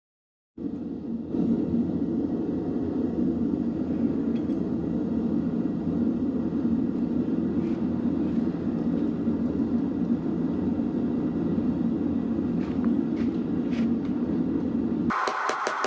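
A forge running with a steady, even low rushing noise, with a few faint ticks over it. It cuts off abruptly near the end, where a brighter clicking sound begins.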